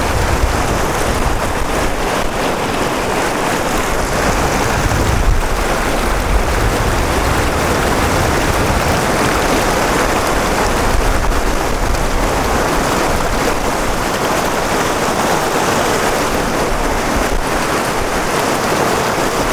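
Loud, steady rush of whitewater rapids on a river running high and fast.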